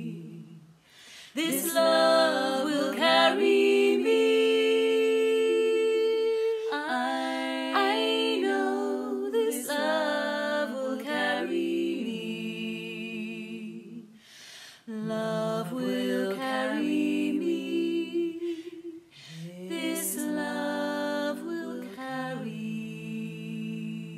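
Three-part a cappella vocal harmony sung by one woman layered over her own recordings, held chords moving in steps, with short breaks about a second in and again midway, fading near the end.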